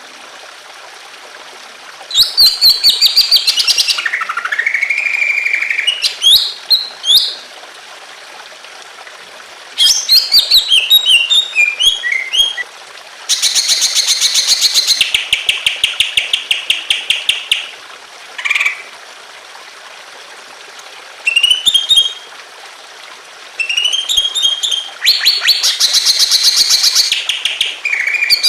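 Greater green leafbird (cucak ijo) singing loud, varied phrases of sweeping whistles and fast chattering trills, separated by short pauses, over a steady hiss of trickling water.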